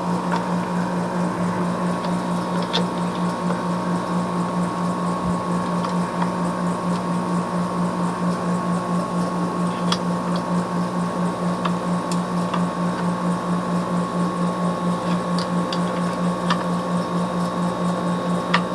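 Steady machine hum with a fast, even pulse, starting and stopping abruptly.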